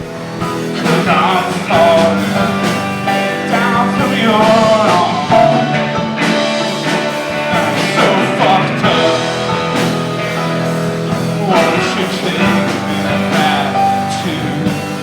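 Rock band music with a singing voice.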